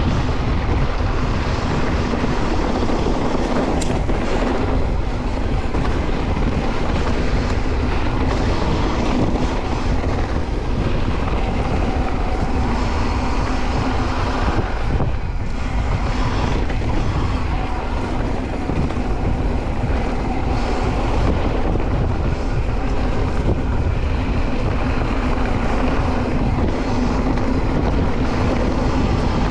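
Santa Cruz Bronson C mountain bike riding down a dirt trail: steady tyre and bike noise with wind on the microphone.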